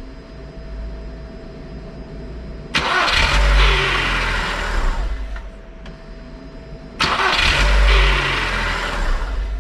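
Škoda Fabia Mk1 engine started twice, about three seconds in and again about seven seconds in. Each start is a sudden loud burst of a couple of seconds. This is the noise these Volkswagen-group cars make right after the starter disengages from the flywheel, which a mechanic blames on a spot in the starter that nobody greases.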